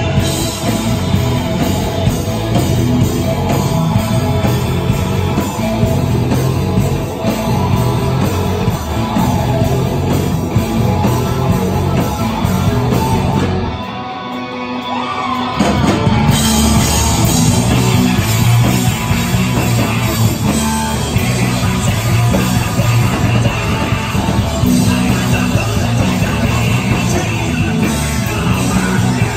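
Live rock band playing loud with electric guitars, drums and a singer. About halfway through, the band thins out for a couple of seconds, leaving a rising pitch, then the full band comes back in.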